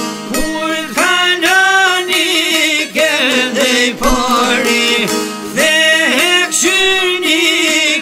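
Albanian folk song music: a wavering, ornamented melody over plucked-string accompaniment.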